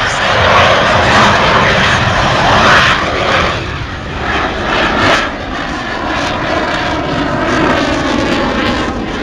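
Twin GE turbofan engines of a Navy jet running loud as it flies a slow low pass, strongest for the first three seconds and then easing off.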